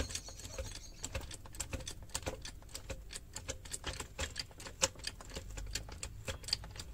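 Rapid, uneven run of sharp metallic clicks and ticks, several a second, as a jack is worked to raise the BMW E36's rear axle and compress the coilover spring.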